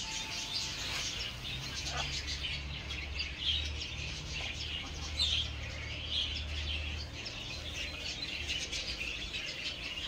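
Many aviary birds chirping, short high calls that keep coming throughout, with a low rumble underneath for the first several seconds.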